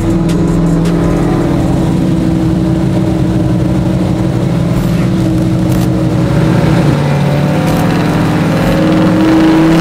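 Pickup truck V8 engines running steadily as the trucks roll along side by side. About seven seconds in the engine note sags, and near the end it climbs again as the revs come up.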